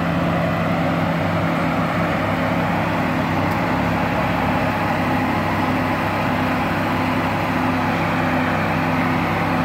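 2010 Camaro's twin-turbo LLT V6 idling steadily: a constant hum with a low tone that comes and goes regularly.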